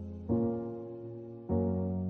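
Background music of slow held chords, a new chord struck twice and fading away each time.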